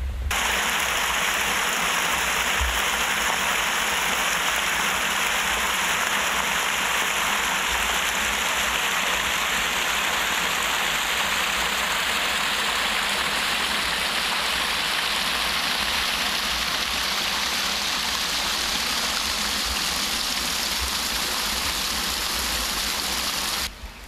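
Loud, steady rush of water pouring through a brick culvert at a canal lock. It cuts in and out abruptly.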